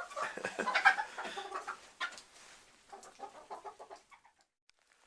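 Chickens clucking in a coop, a run of short repeated clucks mixed with a few knocks, stopping abruptly about four seconds in.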